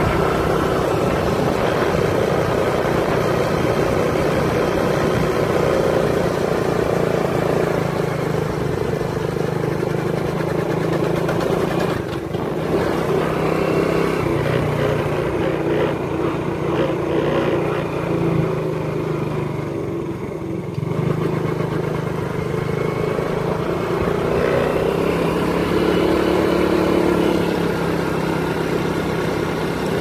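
A motor vehicle's engine running steadily, with road and wind noise; the sound dips briefly about twelve seconds in and again around twenty seconds in.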